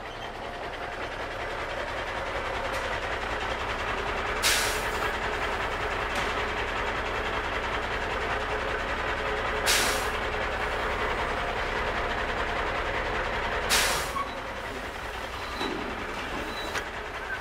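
Plastic Bruder toy trucks rolling on a wooden floor, a steady rumble of the wheels. Three short bursts of hiss come about four, ten and fourteen seconds in.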